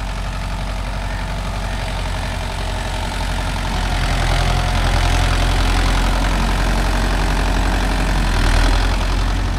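Mahindra Yuvo Tech 585 tractor's diesel engine running steadily, growing louder about four seconds in.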